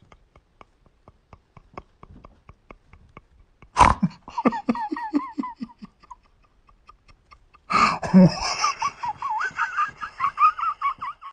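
A person laughs loudly in two bursts, about four seconds in and again near eight seconds, mixed with a dog's wavering, howl-like cries. Faint regular ticks come before the first burst.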